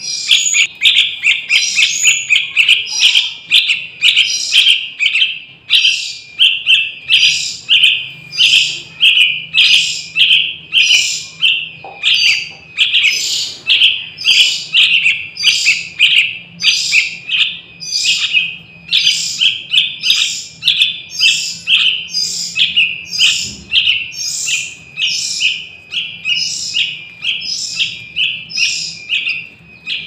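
Yellow-vented bulbul fledglings giving a long run of high, repeated chirps, about two a second: young birds calling to be fed.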